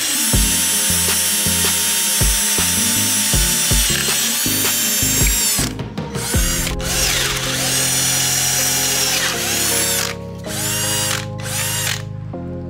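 Cordless drill's motor and gearbox: short on-off bursts on the trigger for about the first six seconds, then running steadily, with the speed changing a few times.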